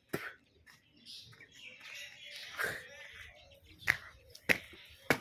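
Footsteps on a hard floor: sharp slapping steps, one just after the start and then a steady run of steps about 0.6 seconds apart in the second half. Faint birdsong is in the background.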